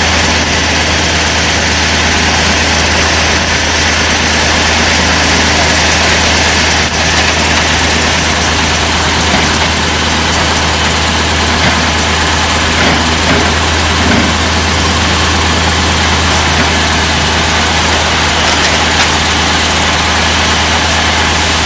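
Heavy engines running steadily, a constant low hum under a loud, even rush of machine noise.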